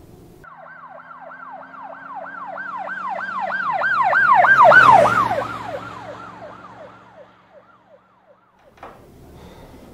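An emergency-vehicle siren on a fast yelp, about three or four sweeps a second. It grows louder, passes about five seconds in with a drop in pitch, then fades away until it stops about a second before the end.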